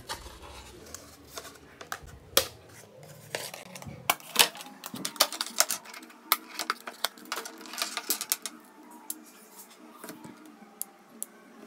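Hands taking a Bluetooth neckband earphone out of its moulded packaging insert, with irregular clicks, taps and light rustles as the tray, cable and earbuds are handled.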